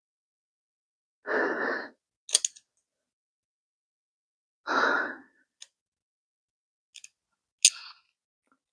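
A man breathing out heavily twice, sighs a few seconds apart, with a few light clicks between them.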